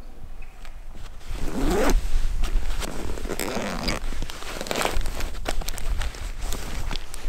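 A run of quick scraping, zip-like strokes from gear being handled, starting about a second in, over a steady low rumble.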